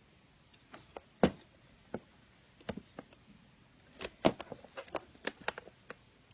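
Slime being worked by hand, giving irregular sticky clicks and pops: a few scattered ones, then a quick cluster of them about four seconds in.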